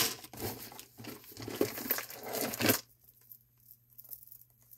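A bag of wooden beads crinkling as it is handled, with small clicks mixed in; it stops about three seconds in.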